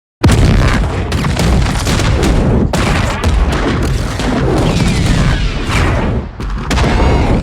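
Star Wars-style mine explosion sound effects: a dense run of booms and sharp blasts, one after another, starting suddenly. A whistling tone glides through them about five seconds in.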